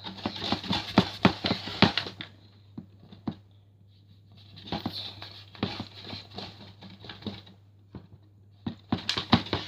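Hands rolling and patting Play-Doh on a desk: spells of rubbing with many quick soft taps and knocks, broken by short pauses.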